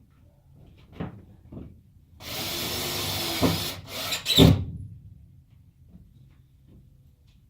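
A power drill running a screw in the plywood subfloor for about a second and a half, then a few sharp knocks, the loudest just after the drill stops.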